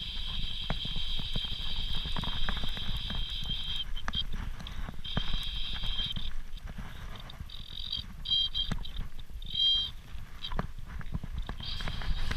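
Fly reel's click check whirring in stretches as the spool turns, stopping and starting several times while line is wound in on a hooked fish. Wind and handling noise rumble on the microphone underneath, with a few knocks.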